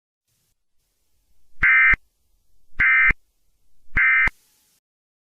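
Emergency Alert System end-of-message signal: three short bursts of SAME digital data tone, each about a third of a second long and a little over a second apart. It marks the close of an alert.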